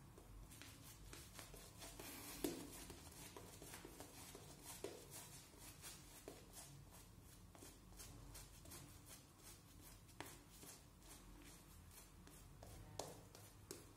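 Faint, quick brushing strokes of a synthetic-bristle shaving brush working shaving-cream lather over the face, with a sharper click about two and a half seconds in and another near the end.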